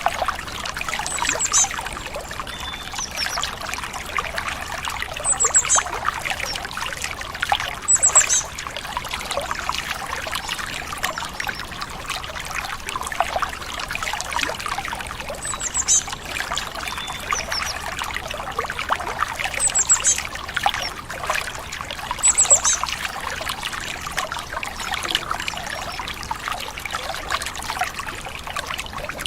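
Water trickling and babbling in a small stream, with a bird giving short, very high chirps every few seconds.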